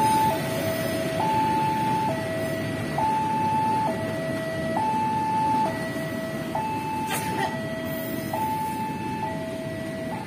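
Railway level-crossing warning alarm sounding its electronic two-tone signal, alternating high and low with each tone held just under a second, to warn that a train is passing over the crossing. Train and traffic noise underneath, with one sharp click about seven seconds in.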